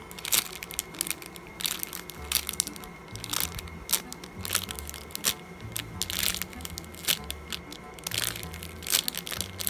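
Clear plastic bag crinkling and crackling in irregular bursts as a foam squishy is squeezed and turned inside its package. Soft background music with a bass line runs underneath.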